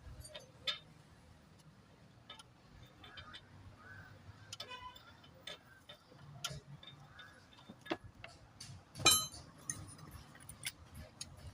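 Scattered metallic clicks and clinks of tools and engine parts being handled during an engine rebuild, irregular, with a louder knock about nine seconds in.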